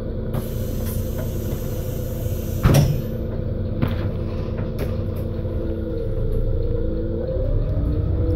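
Volvo single-deck bus engine idling, heard from inside the bus, with one loud thump about three seconds in. Near the end the engine note rises as the bus pulls away.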